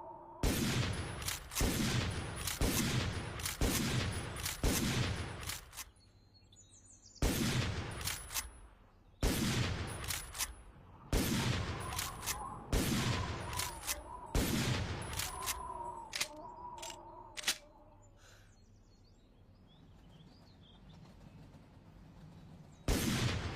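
Winchester Model 1895 lever-action rifle fired in rapid strings, shots about a second apart, each ringing out in a long echoing tail, with small mechanical clicks between them. It pauses twice, then fires once more near the end.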